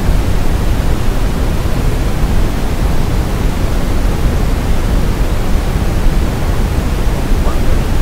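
Steady coloured noise playing from the simplynoise.com web-based noise generator: an even, hiss-like rush with no tones, strongest in the low end.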